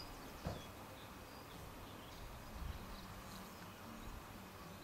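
Faint birds chirping in a garden over low steady background noise, with a single short click about half a second in.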